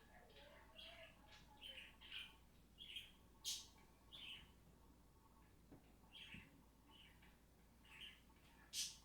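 Faint bird chirping: a run of short chirps, several a second, with a lull of a couple of seconds in the middle before the chirping resumes.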